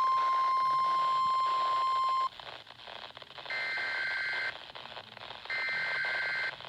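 Weather radio warning alarm tone: a steady single high tone that cuts off about two seconds in. It is followed by two one-second electronic beeps, each of two higher tones together, about two seconds apart. The alert tone keeps setting off again on the station, which the listener finds odd since no warning is read out.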